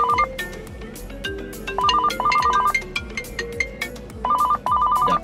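Background music with a steady beat and bass line, over which a trilling, telephone-ring-like figure repeats about every two seconds.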